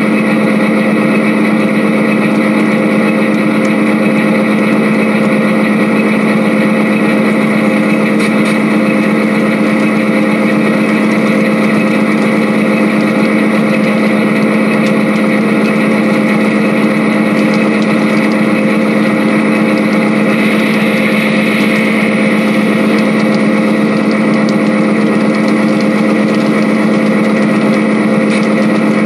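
Model freight train running by: a steady engine-like hum at one constant pitch and an even level, not changing as the cars pass.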